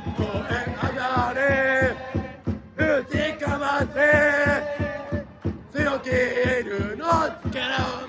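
Baseball cheering section's trumpets playing a fight-song melody in held notes over a quick, steady drumbeat, with the crowd chanting along.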